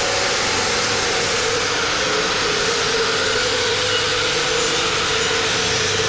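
A machine running steadily: a continuous hiss with a steady hum in it that does not change.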